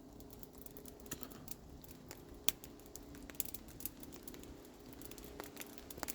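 Raindrops pattering on a tarp: faint, irregular light ticks at a few per second.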